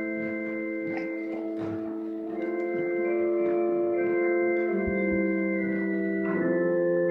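Church organ playing slow, sustained chords, the harmony shifting every second or two, with a couple of soft low knocks about five seconds in.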